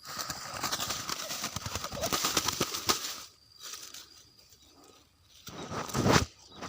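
Wings of a freshly caught spotted dove flapping and rustling in two bouts: a long one over the first three seconds and a short, loud one near the end.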